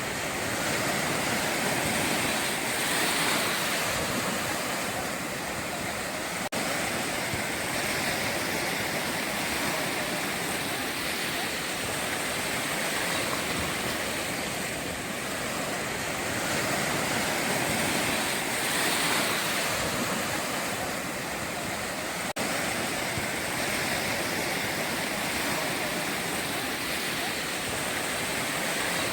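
Sea waves breaking and washing up the shore, a continuous rushing surf that swells and eases every few seconds.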